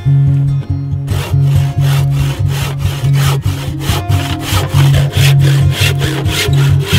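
Hand saw cutting through a wooden timber with quick, even back-and-forth strokes, about three a second, starting about a second in. Background music plays under it.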